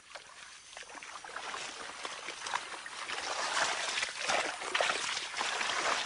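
Water splashing and sloshing, a busy run of small splashes that grows steadily louder.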